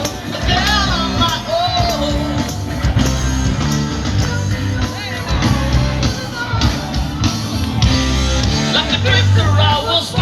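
Live rock band playing with a lead singer, the bass and drums loud beneath the vocal line.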